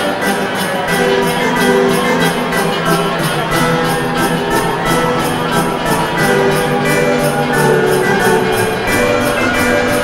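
Music with a steady beat and held melody notes.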